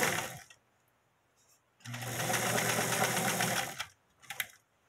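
Singer Facilita electric sewing machine stitching knitted fabric in short runs: it stops about half a second in, starts again after a pause and runs for about two seconds before stopping. A few faint clicks and rustles follow near the end.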